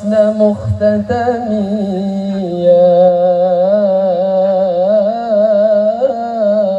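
Male voice singing a long, wavering, melismatic sholawat line in the al-banjari style, with a few rebana frame-drum strokes in the first second.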